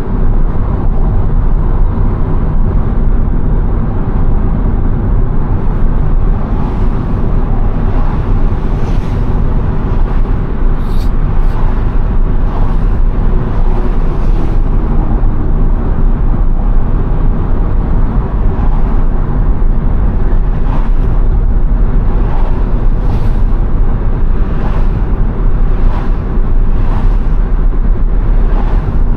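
Steady road noise and low rumble inside the cabin of a Subaru Impreza cruising on a highway, with faint regular ticks about once a second in the second half.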